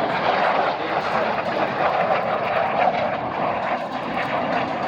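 MiG-17 jet fighter's single turbojet engine running, a loud, steady rushing jet noise with a constant mid-pitched hum.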